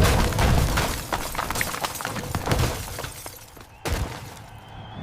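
Car crash sound effect: a loud impact at the start, then glass and debris shattering and clattering, fading over about three seconds, with a second hit near the end.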